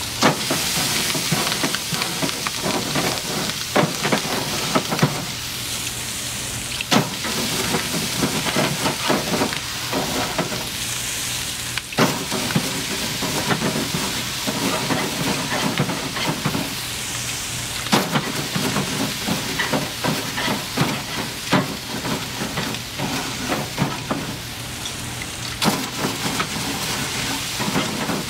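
A water-dipped bristle grill brush scrubbing hot grill grates: a steady sizzle and hiss of water on the hot metal, broken by irregular sharp clicks and knocks as the brush scrapes and strikes the grate bars.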